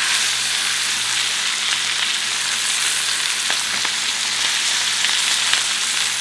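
Ribeye steaks sizzling steadily in hot olive oil in a frying pan, one held on its edge with tongs to sear the side crunchy.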